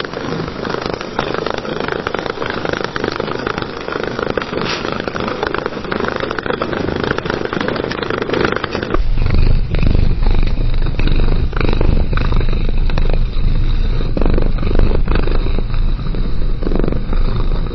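Domestic cat purring steadily, a fast rhythmic rumble. About halfway through, a different cat's purr takes over: deeper and louder.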